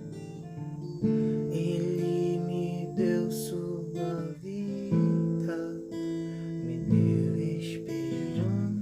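Acoustic guitar strumming chords in a slow worship song, the chord changing every second or two.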